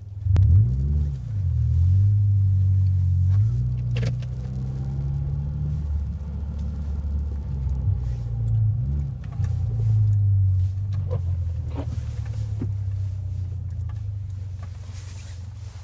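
First-generation Subaru Forester's flat-four boxer engine revving up and down as the car is drifted through snow, with a few short knocks.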